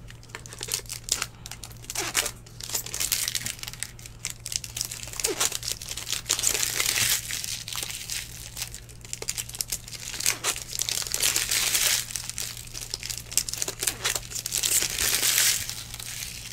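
Foil wrappers of 2019 Bowman Baseball hobby packs crinkling and being torn open by hand, in a continuous run of short crackles and rustles.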